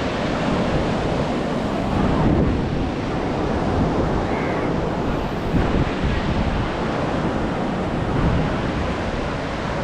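Sea waves breaking in the surf, with wind buffeting the microphone and adding a heavy rumble.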